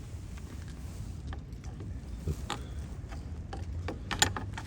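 Light clicks and taps of hands handling and checking a turn signal light housing, a few scattered, with a short cluster of sharper clicks about four seconds in, over a low steady hum.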